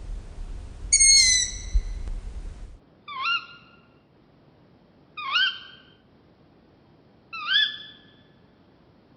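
Owl calls: one high call over a low rumble about a second in, then, after the rumble cuts off, three separate owl screams about two seconds apart, each a short cry that rises and then holds.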